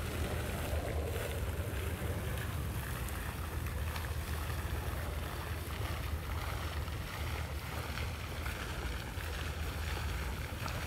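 Steady low rumble of wind on the microphone, with a faint even hiss above it.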